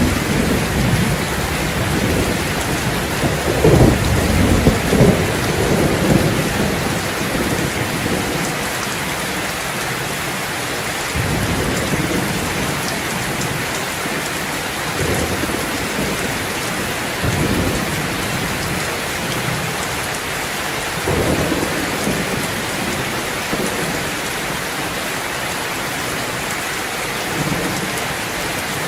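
Steady rain falling, with low rolling rumbles of thunder, the strongest a few seconds in and weaker ones later on.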